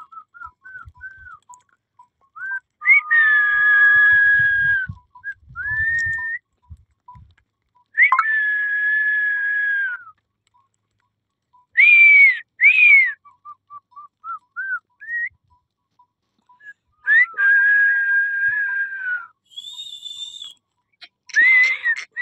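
A person whistling. Three long held notes of about two seconds each, with short rising and falling whistles between them and two quick up-and-down chirps about twelve seconds in.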